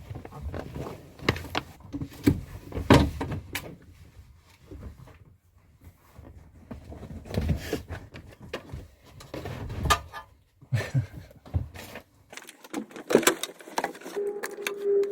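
Irregular knocks, clunks and rattles of hand work in a van's cab as the seat and booster-pack leads are handled to reach the battery, busiest in the first few seconds and again in the middle, with a quieter gap between.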